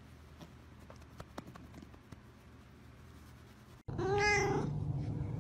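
A few faint soft clicks, then about four seconds in a tabby-and-white cat gives a single meow that rises and then falls in pitch, followed by a steady low hum.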